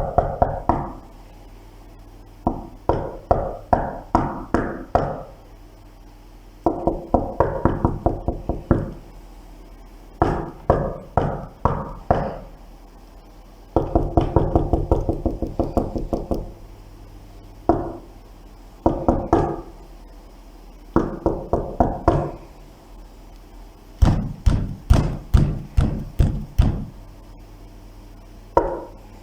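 Knocking and banging on a door: bursts of several quick knocks, each burst lasting one to three seconds, with pauses of a second or two between them. A faint low hum runs underneath.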